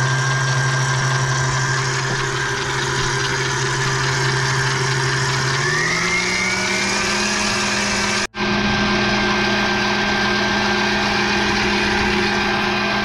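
Stand mixer motor running steadily, its flat beater creaming shortening and sugar in a steel bowl. A little before halfway its hum rises in pitch and holds at the higher note, with a split-second gap in the sound a little past the middle.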